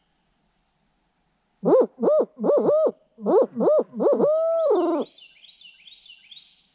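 A hand-blown owl hooter (turkey locator call) giving a barred owl's 'who cooks for you, who cooks for you-all' hoot: two sets of quick rising-and-falling hoots, the last drawn out and falling off at the end. It is the kind of loud owl call turkey hunters blow to make gobblers shock-gobble and give away where they are. Faint repeated high notes follow.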